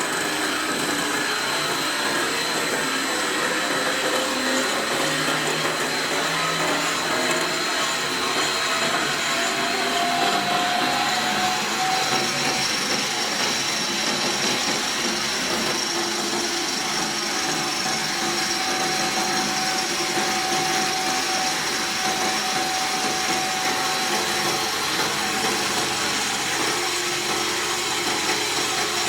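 Straight-type wire drawing machine running with a steady mechanical whir and high whines; one whining tone climbs slowly over the first dozen seconds, then holds steady.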